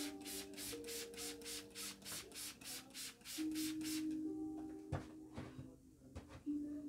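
Hand trigger spray bottle squeezed over and over, about four hissing sprays a second for some four seconds, wetting a bare-rooted tree's roots, then a few light knocks; soft background music with held tones runs underneath.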